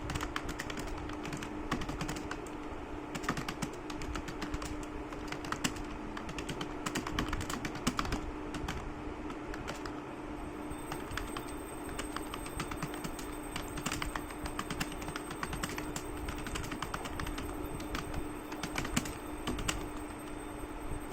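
Fast, continuous typing on a computer keyboard: a quick, irregular run of key clicks, with a steady low hum beneath.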